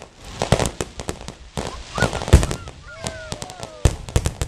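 Fireworks going off: a dense string of bangs and crackling pops, the loudest bang a little over two seconds in, with a few short gliding tones in the middle.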